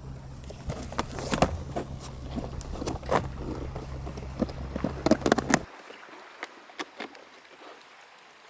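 Repeated clicks and knocks from a plastic folding canoe being assembled, its panels and clips snapped into place, over a steady low rumble that cuts off suddenly about two-thirds of the way through.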